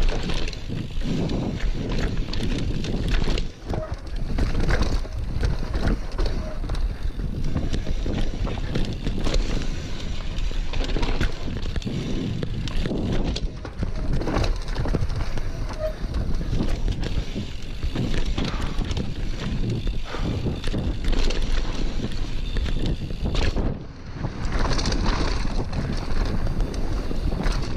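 Mountain bike riding down a dirt downhill trail: tyres rolling over dirt and roots, and the bike rattling and clattering over bumps, with wind noise on the microphone. The clatter briefly eases three times, about 3.5, 13.5 and 24 seconds in.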